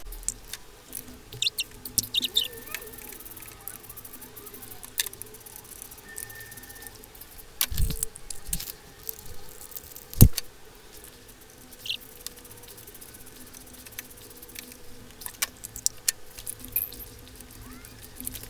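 Scattered metallic clicks and clinks of hand tools working on spark plugs in an engine bay, with two louder knocks about eight and ten seconds in, over a faint steady hum.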